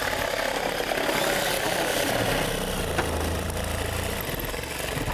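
Cordless reciprocating saw running steadily as its blade cuts through an old wooden fence rail.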